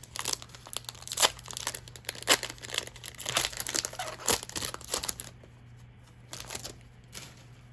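Foil wrapper of a Magic: The Gathering booster pack crinkling and tearing as it is opened by hand, in a run of sharp crackles that dies down about five seconds in.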